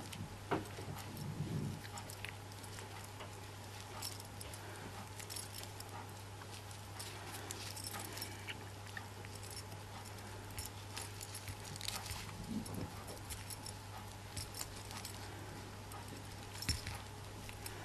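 Faint scattered clicks and small metallic jingles of a keyring's split ring and clasp being handled and fiddled with, over a steady low electrical hum.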